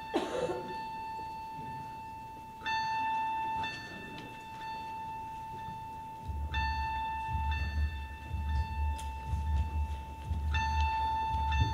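Theatre sound-design cue played over the house speakers: a steady high tone with a bell-like chime that sounds about every four seconds and slowly fades. A deep, pulsing low throb joins about halfway through.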